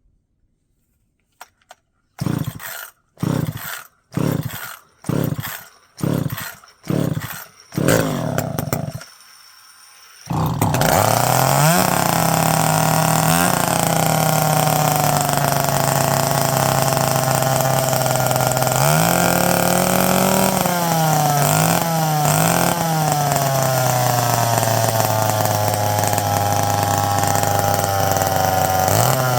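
McCulloch Pro Mac 55 two-stroke chainsaw being pull-started, starting for the first time in years: seven quick cord pulls about a second apart, then the engine catches about ten seconds in and keeps running. It revs up briefly a few times, then settles to a steady idle.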